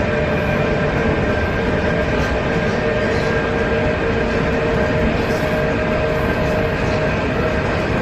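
ЭП2Д electric multiple unit accelerating: the traction motors whine in several steady tones over loud rolling noise, the main tone stepping up in pitch near the end.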